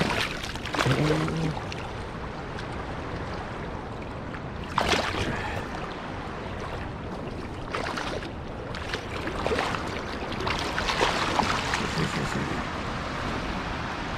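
Steady rush of river water, broken by a few short sharp sounds: one about five seconds in and several more between about eight and eleven seconds.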